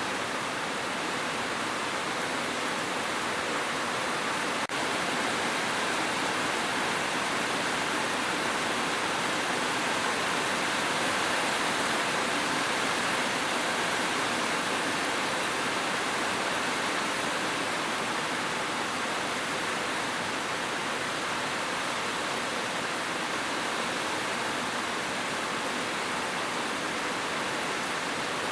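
Steady heavy rain, an even hiss with no separate drops standing out. There is a split-second dip in level about five seconds in.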